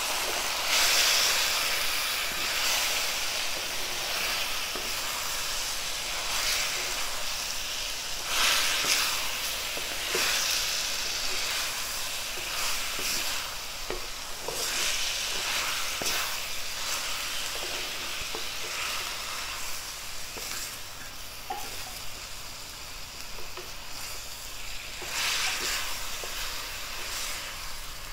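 Raw chicken pieces sizzling in hot oil with fried onions in a kadai, while a wooden spatula stirs and scrapes them around the pan. The chicken is being sautéed dry in oil, with no water added.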